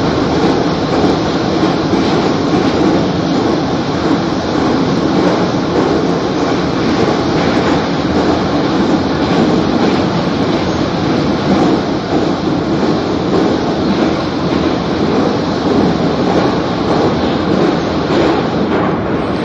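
Metro train running through an underground tunnel: a steady, loud rumble and roar that keeps up without a break.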